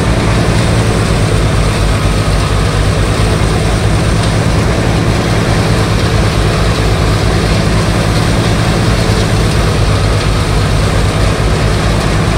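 Tractor-driven thresher running under load while being fed mustard stalks: a loud, steady engine drone with a noisy threshing rush over it.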